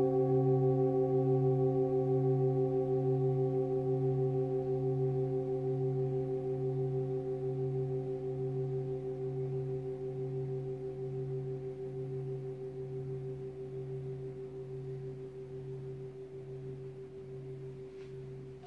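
An antique hand-hammered Tibetan singing bowl, held on the palm, rings on after a strike. Its several tones pulse in a slow wah-wah and slowly fade. The ring is cut off suddenly at the very end as the bowl is stopped by hand.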